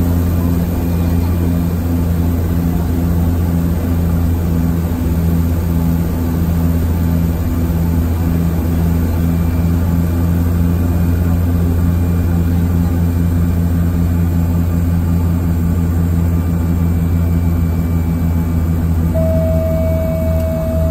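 Cabin sound of a DHC-6 Twin Otter floatplane's twin turboprop engines in steady descent: a loud, even propeller drone with a deep hum and a regular throbbing pulse. A steady high tone joins it about a second before the end.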